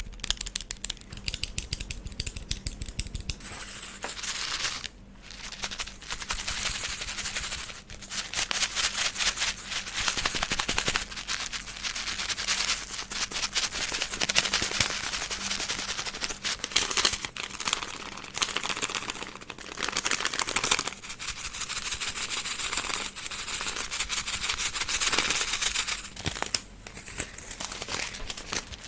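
Rapid, crisp ASMR tapping and clicking, dense and nearly continuous, with a short pause about five seconds in, over a faint steady low hum.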